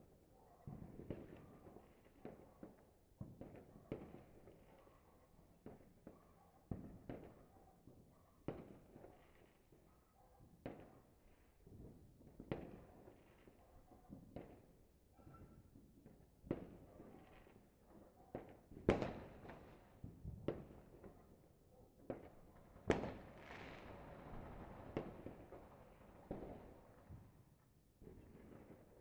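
Fireworks and firecrackers going off in irregular, scattered sharp bangs, each with an echoing tail. The two loudest bangs come about two-thirds and four-fifths of the way through, the second followed by a few seconds of denser crackling.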